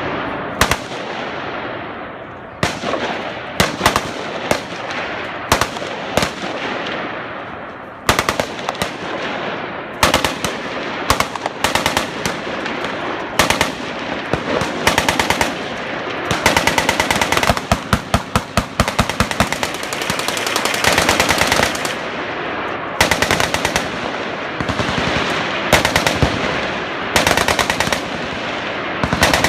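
Machine guns firing fully automatic bursts, short and long, overlapping one another, with a dense fast string of shots about midway and echoes trailing after the bursts.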